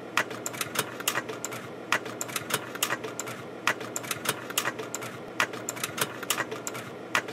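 Irregular clicking, three or four clicks a second, over a steady hiss, like a typewriter's clatter.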